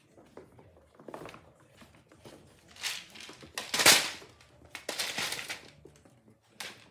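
Plastic bottle crinkling and crunching in irregular bursts as puppies bite and shove it across a wooden floor, loudest about four seconds in.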